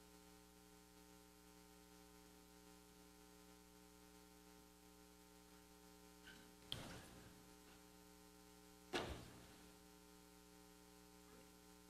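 Near silence with a steady electrical mains hum from the sound system, broken twice by a brief knock, about two-thirds of the way through and again a couple of seconds later.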